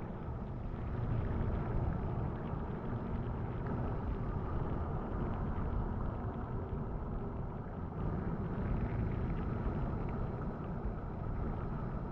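Steady, muffled low rumble of water heard through a submerged action camera's waterproof housing, with no distinct events.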